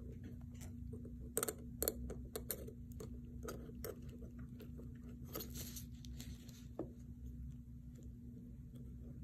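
Columbia 13/14 universal curette clicking and scraping against the model teeth of a dental typodont: a run of small sharp clicks in the first few seconds, then a longer scraping stroke about five seconds in that ends in a click.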